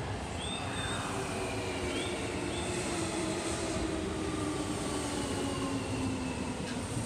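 Electric commuter train pulling into a station platform and slowing, its motor whine falling steadily in pitch under braking, over the rumble of wheels on rails.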